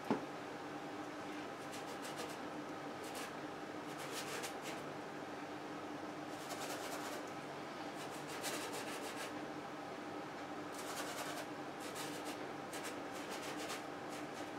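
Bristle paintbrush stroking paint onto a canvas: short scratchy rubbing sounds in bursts every second or two, over a steady low hum.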